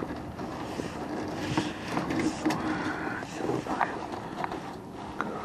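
Handling noise from a landing net holding a freshly caught trout on a plastic boat deck: rustling mesh with scattered clicks and knocks.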